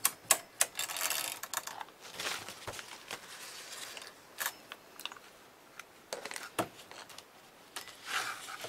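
Brisk handling of knitting machine parts: a quick run of sharp clicks, a short rustle about a second in, then scattered clicks and light knocks.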